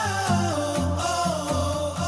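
Background music: a song with a steady beat, bass line and a melody that bends in pitch.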